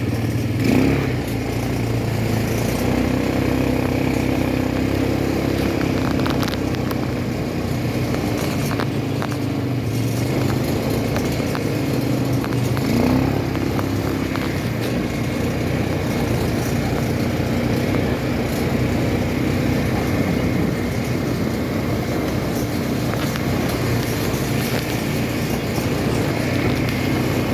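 ATV engine running under way, its pitch rising briefly about a second in and again about halfway through.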